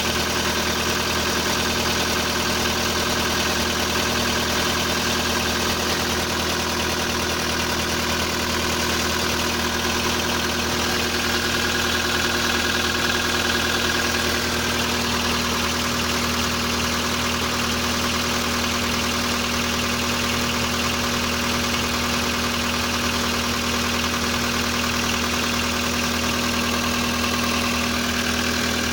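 Volkswagen Polo sedan's CFNA 1.6-litre four-cylinder petrol engine idling steadily, cold, shortly after a start at minus 30. The owner hears only hydraulic lifter ticking and no piston knock.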